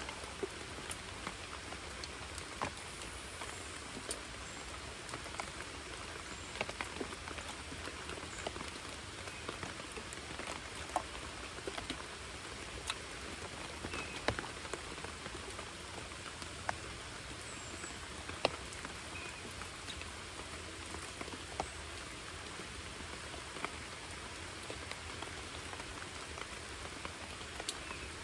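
Steady rain falling on a creek, an even hiss with scattered sharp taps of single drops landing close by at irregular moments.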